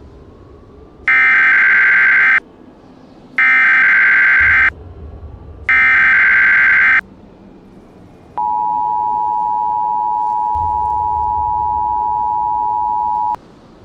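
Emergency Alert System SAME header: three identical bursts of warbling digital data tones, each about a second and a half long with short gaps between. These are followed by the two-tone EAS attention signal held steady for about five seconds, marking the start of an emergency alert broadcast.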